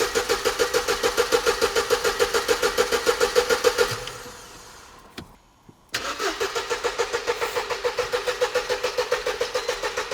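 Mercedes SLK's starter cranking the engine in two attempts of about four to five seconds each, with a steady rhythm of compression pulses, about seven a second, and a whine from the starter. The engine turns over but does not catch; the car has stood unused for a long time, and no fuel-pump prime is heard.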